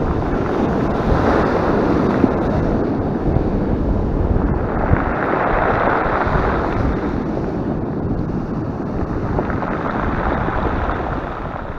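Heavy surf breaking and washing up a pebble beach, with wind buffeting the microphone. The rush of foam swells three times, a wave every four seconds or so.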